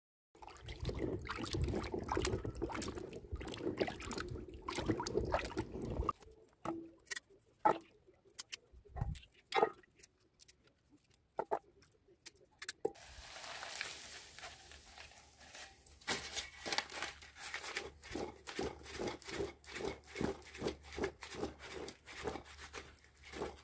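Peeled taro (cocoyam) being washed by hand in a plastic basin of water, with splashing and rubbing and scattered knocks as pieces go into a metal pot. In the last part the washing settles into a steady rhythm of about two or three strokes a second.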